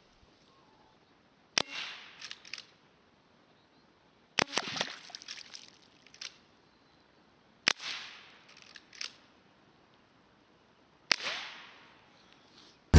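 Four shots from a Walther lever-action CO2 air rifle, roughly three seconds apart. Each is a sharp pop followed by a few smaller clicks.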